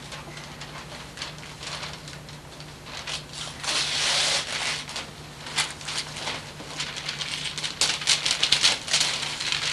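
Gift wrapping paper being torn and crumpled off a present box: a run of crackling rustles, with a longer rip about four seconds in and a quick burst of crackles near the end.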